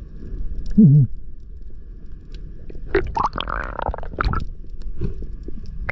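Muffled underwater sound picked up by a diving camera: a steady low rumble with gurgling water. A louder burst of bubbling and splashing comes about three seconds in.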